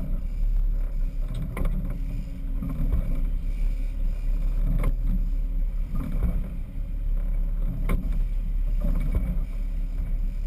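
Sportfishing boat under way: a steady low rumble of engine and water rushing along the hull, with a few sharp knocks.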